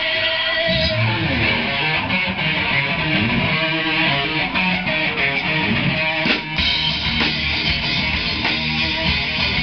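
Live band playing electric guitar, bass guitar and drum kit. A single held note sounds at first, and the full band comes in about a second in.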